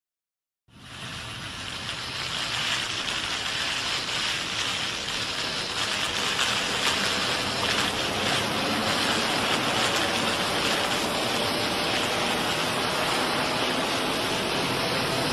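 Godzilla's atomic breath sound effect: a long, steady rushing hiss that fades in about a second in, swells over the next couple of seconds, then holds.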